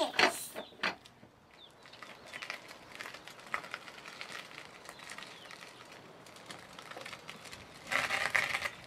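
Children's pedal go-kart rolling, its chain drive and wheels clicking and rattling. A few sharp clicks come in the first second, and a short burst of rough noise comes near the end.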